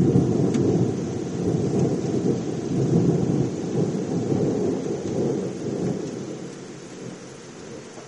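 Thunder rumbling: it breaks in suddenly and loudly, rolls on with a second swell a few seconds in, then slowly dies away.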